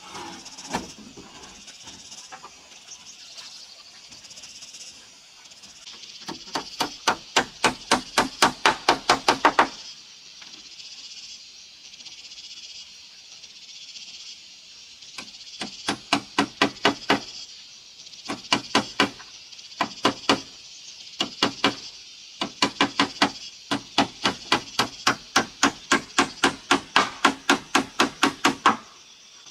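Hammer driving nails through corrugated roofing sheet into a wooden frame, in several runs of quick blows, about five a second, with short pauses between the runs.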